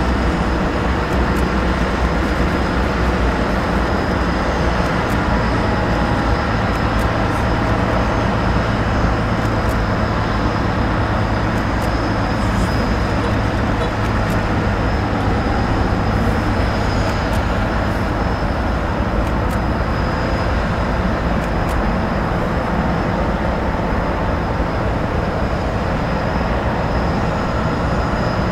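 Jet aircraft engines running steadily: a thin high whine over a broad low rumble, with no rise or fall.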